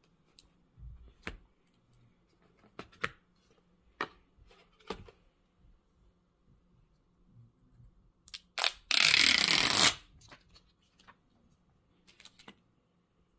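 Phone packaging being handled during an unboxing: scattered light clicks and taps. About nine seconds in comes one loud rustling rasp lasting about a second.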